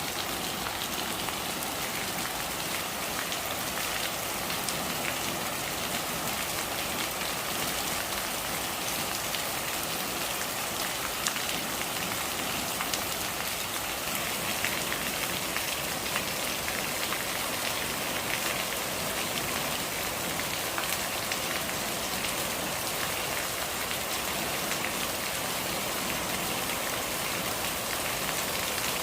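Steady rain falling, with a continuous hiss and many small individual drop taps scattered through it.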